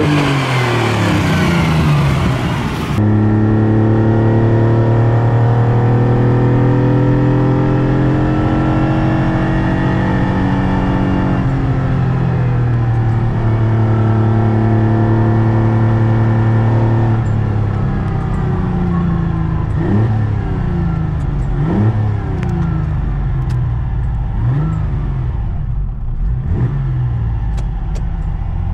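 Ferrari Dino 246's V6 engine under way on a circuit. First comes a brief pass-by with the pitch rising. Then, heard from inside the cabin, it holds steady at high revs with one short dip, and near the end it makes several quick drops and rises in revs.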